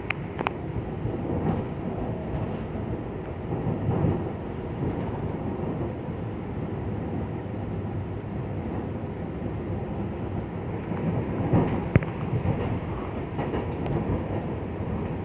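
Cabin noise of a Taiwan Railways EMU900 electric multiple unit rolling into a station: a steady low rumble of wheels on rail, with a few light clicks and one sharp knock about twelve seconds in.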